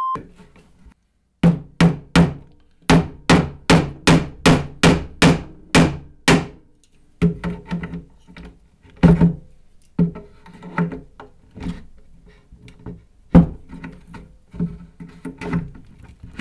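Hammer head of a small RAK Hammer multitool driving nails into a wooden pallet board. A quick, even run of about fifteen blows comes at about three a second, each with a short ringing note. Then come slower, uneven taps with one harder blow near the end.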